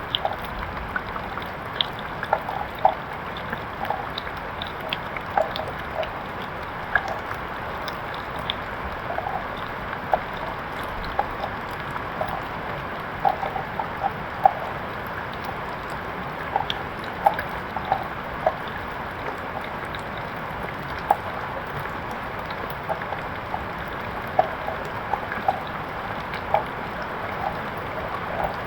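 Steady rain falling, with many separate drops ticking sharply through it.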